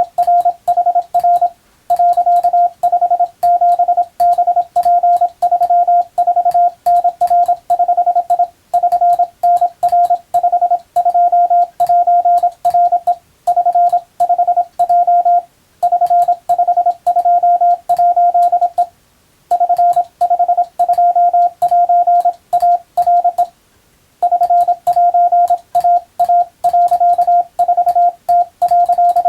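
Japanese Wabun Morse code: a single steady mid-pitched tone keyed on and off in short and long beeps, with a faint click as each beep starts and stops. It runs in groups, broken by short pauses about every few seconds.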